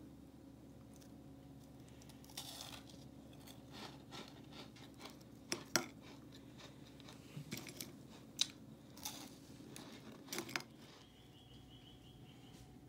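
Crispy rolled egg-roll wafers crunching as they are bitten and chewed: a string of sharp snaps and short crackles, the loudest about halfway through, stopping about ten seconds in. A faint steady hum lies underneath.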